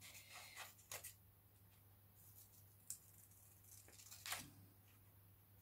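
Small scissors snipping a printed paper sheet: a few faint separate snips over near silence, the loudest after about four seconds.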